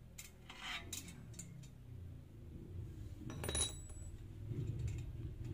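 Light metallic clicks and clinks as a motorcycle spoke wheel is turned slowly by hand on a homemade truing stand, with a louder clink about three and a half seconds in. A low engine rumble grows near the end.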